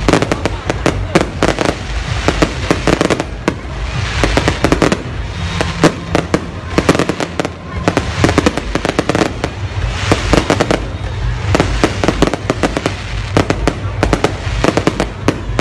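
Aerial fireworks display: a dense, continuous run of bangs and crackling bursts, many a second, with no break.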